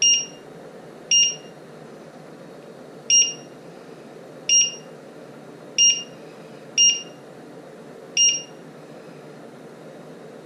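Electric glass-ceramic hob's touch-control keys beeping as they are pressed, seven short high beeps at uneven intervals while the time setting is stepped up and down.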